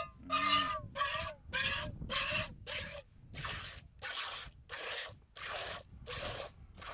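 A camel being milked by hand: rhythmic squirts of milk hitting a bowl, about two a second, each a short hissing spray, the first few with a clear ringing note.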